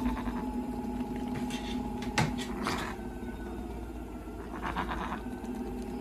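A pet's short calls, heard a few times over a steady low hum.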